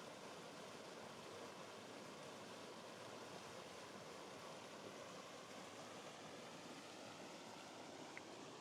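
Faint, steady rush of running water from a small waterfall spilling into a river pool.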